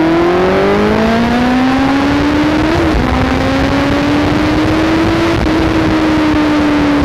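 Honda CBR650R's inline-four engine, fitted with an Akrapovic titanium full-system exhaust, accelerating under way. Its pitch climbs, dips at a gear change about three seconds in, climbs again, then breaks at a second shift and slowly falls near the end, over a steady rush of wind.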